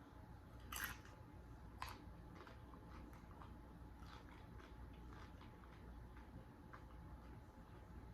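Quiet chewing of tortilla-chip nachos close to the microphone: two crisp crunches about one and two seconds in, then softer scattered mouth clicks.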